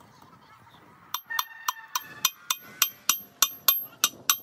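Hand hammer striking the steel gears and shaft inside a heavy truck's gear housing, about a dozen quick blows at roughly three to four a second, each ringing metallically. The blows start about a second in.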